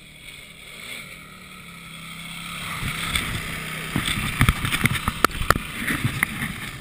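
Quad bike (ATV) engine approaching and growing steadily louder. From about four seconds in it runs close by, broken by a series of sharp cracks and knocks.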